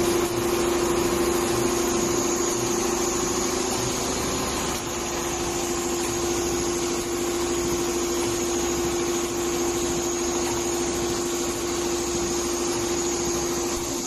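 Four-head CNC leather sewing machine running steadily as it stitches, a continuous even machine hum with a steady tone.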